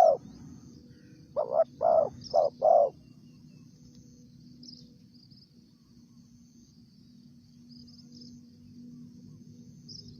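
Spotted dove cooing, a phrase of four notes about a second and a half in, then faint high chirps of insects or small birds.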